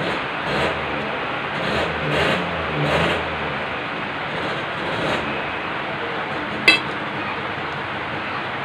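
Heavy rain falling, a steady hiss. A few short, louder sounds come in the first half, and there is one sharp click about two-thirds of the way in.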